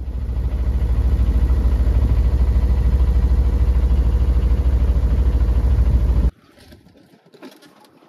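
A boat engine running steadily while the sailboat motors out through the harbour, with a deep, even pulsing low in the sound. It stops abruptly about six seconds in, leaving only faint sound.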